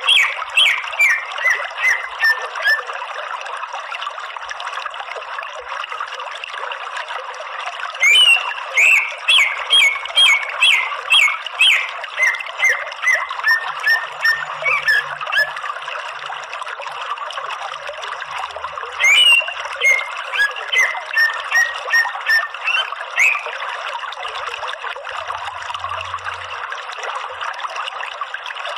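Green leafbird (cucak ijo) calling: runs of loud, sharp notes repeated about twice a second, coming in bursts near the start, about eight seconds in and again about nineteen seconds in, over a steady rushing background noise.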